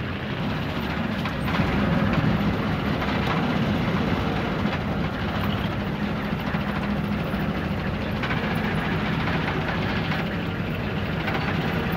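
Wooden river boat's engine running steadily at low revs, a constant low drone that grows a little louder about two seconds in.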